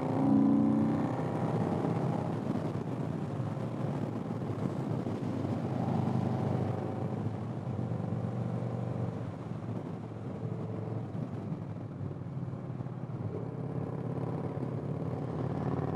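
Motorcycle engine running under way, its note rising briefly in the first second and then holding fairly steady, with wind rush on the microphone.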